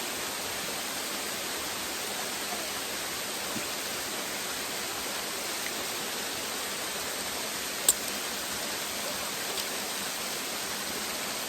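Steady rushing of a waterfall, an even hiss without change. A single sharp click about eight seconds in.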